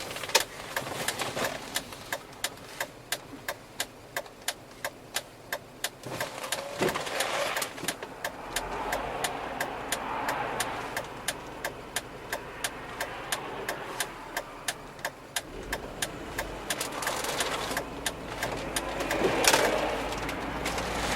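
2001 Volvo V70 T5 on the road, its engine running under a regular ticking of about two to three ticks a second. The engine sound grows stronger about eight seconds in, and two brief whooshing swells pass, one about seven seconds in and one near the end.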